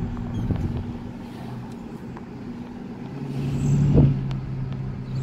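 Car engine and road noise heard from inside the cabin while driving, a steady low hum that gets louder about three seconds in. A single thump near four seconds.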